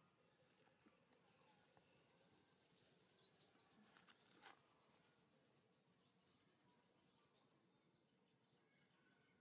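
Faint high-pitched insect trill, a rapid pulsing buzz that starts about a second and a half in and breaks off after about six seconds, with a single soft click midway.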